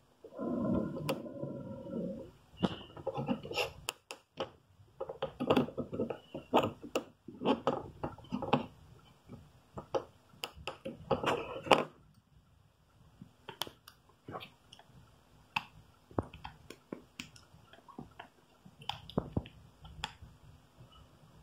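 Irregular small clicks and taps of fingers handling a disassembled Nokia 6600 Slide phone, pressing its screen connector and ribbon cable, with a short pitched sound about half a second in.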